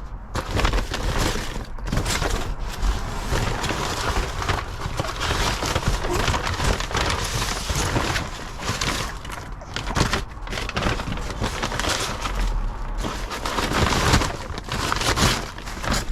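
Continuous crackling and rustling, with many sharp crunches and knocks scattered through it.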